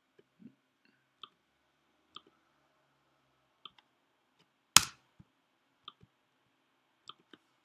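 Computer mouse clicking: single short clicks about once a second, one of them much louder about halfway through.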